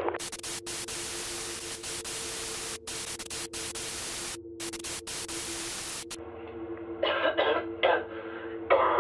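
Loud hiss of video static with several brief dropouts, cutting off abruptly about six seconds in: the camcorder recording breaking up. A low steady hum runs underneath, and a few short coughs come near the end.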